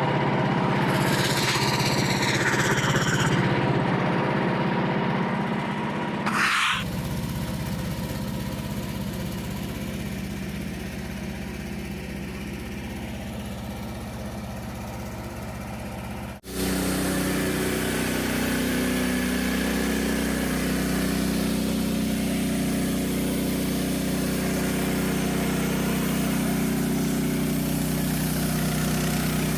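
Gas engine of a Frontier OS27 portable bandsaw sawmill running steadily, with abrupt changes in its sound about six and a half and sixteen and a half seconds in; a wavering high whine rides over it in the first few seconds.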